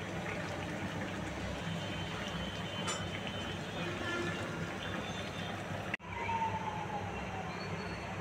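Liquid bubbling as it boils in a pan on a gas stove, a steady noise over a low background hum. After a short break about six seconds in, a pot of foamy, starchy water boils.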